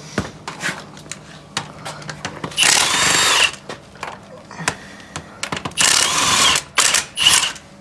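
Impact wrench running in two short bursts, spinning lug nuts off a Jeep's front wheel, with clicks and knocks of the sockets and nuts between.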